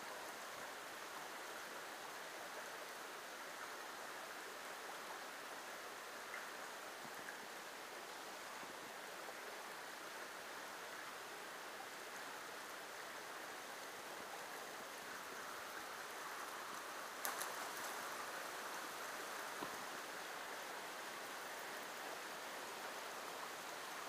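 Small rocky creek running steadily over stones in a shallow riffle, with a brief knock about two-thirds of the way in.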